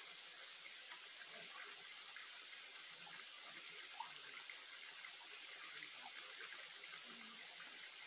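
Mountain stream running steadily, with a steady high-pitched insect chorus over the water.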